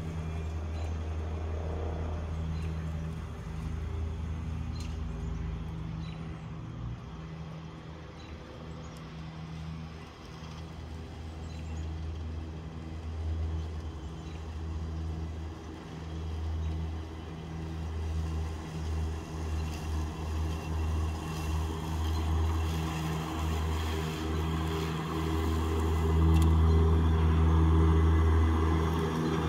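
EGO battery-electric zero-turn riding mower running, a steady low hum that grows louder over the second half as the mower comes closer.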